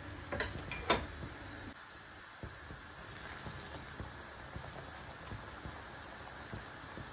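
Sugar syrup at a rolling boil with paneer balls for rasmalai, bubbling and popping steadily. A metal ladle clinks against the pot twice in the first second.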